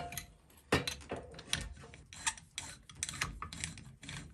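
Hand reassembly of a UV water sterilizer: irregular clicks and knocks with light rubbing as the black plastic end cap is fitted over the bulb and onto the threaded stainless-steel housing. A sharp click starts it, and another comes about three-quarters of a second in.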